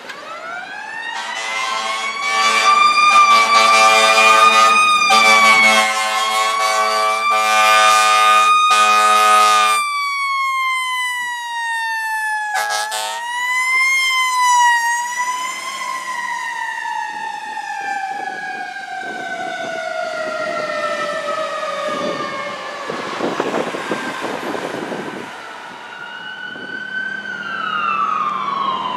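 A fire engine's siren climbs to a high wail while its air horn blasts in repeated pulses over it. The siren then falls slowly away over about twelve seconds, with one brief horn blast along the way. A second siren starts near the end.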